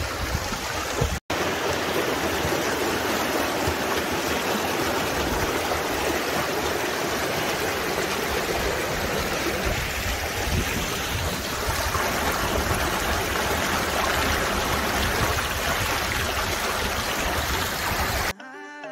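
The Neora River's shallow current rushing and splashing over large rocks: a steady, even water noise, with a momentary dropout about a second in.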